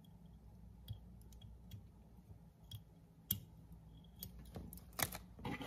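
Faint, scattered light clicks and ticks of fly-tying tools, a whip finish tool and thread bobbin, as thread is whip-finished at the head of a fly in the vise, with a louder cluster of clicks about five seconds in.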